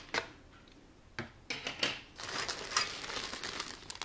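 Clear plastic parts bag crinkling and rustling as it is handled. There are a few short crackles and light knocks in the first half, then denser crinkling through the second half.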